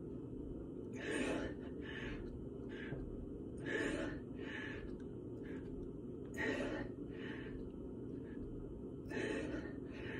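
A man breathing hard while doing push-ups: a strong, forceful exhale about every two and a half seconds, four in all, with shorter, weaker breaths between them. A steady low hum runs underneath.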